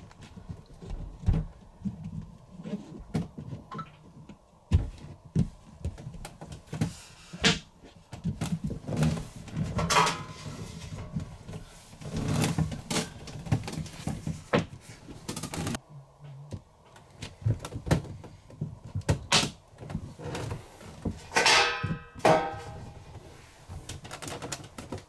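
Irregular clicks and knocks of magnets being placed against the inside of an RV windshield while a magnetic sunshade is handled on the outside of the glass. A short pitched sound comes about twenty-one seconds in.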